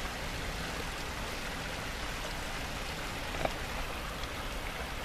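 Steady rush of river water flowing under the bridge, with one brief faint click about three and a half seconds in.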